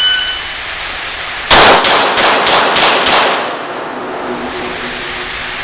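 A shot timer beeps once, and about a second and a half later a pistol fires a fast string of about six shots, roughly four a second, echoing in an indoor range.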